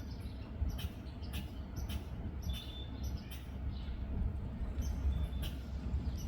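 Outdoor ambience with birds: two short, high single bird chirps a few seconds apart and scattered sharp little clicks, over a steady low rumble.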